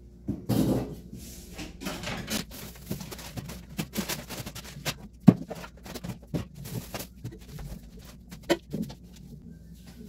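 Packages being taken out of a kitchen cupboard and set down on a counter: plastic packaging rustling, with scattered knocks and clatters. The sharpest knock comes about five seconds in.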